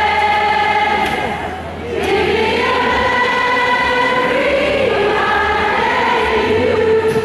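Large concert audience singing a melody together, many voices on long held notes, with a brief breath between phrases about a second and a half in.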